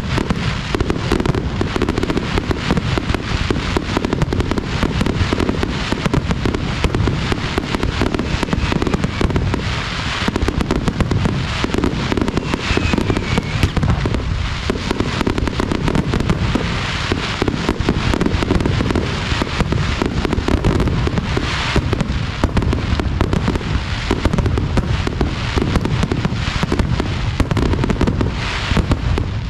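Fireworks display going off in a dense, unbroken barrage of rapid bangs and crackling.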